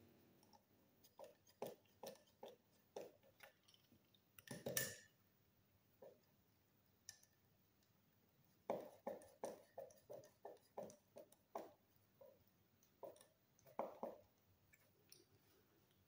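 Faint, scattered small clicks and scrapes of a screwdriver working a wire terminal screw on a magnetic contactor, in two short spells separated by a quiet pause.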